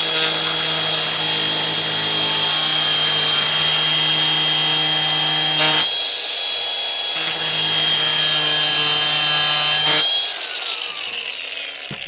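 Angle grinder with a diamond grinding wheel grinding across glossy ceramic tile: a steady high whine over a lower hum. About six seconds in it breaks off briefly, then grinds again, and near the end it winds down with a falling whine. The wheel skates over the gloss glaze rather than biting in.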